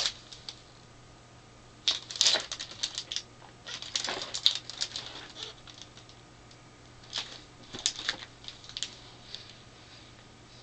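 Packaging being handled: a cardboard box and plastic wrap rustling and crinkling in short bursts of crackles, about two seconds in, again around four seconds, and scattered crackles near the end.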